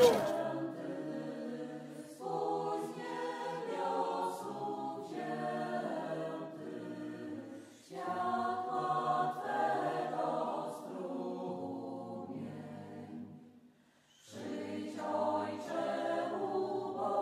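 A choir singing in long phrases, with a brief break about eight seconds in and a short silence about fourteen seconds in.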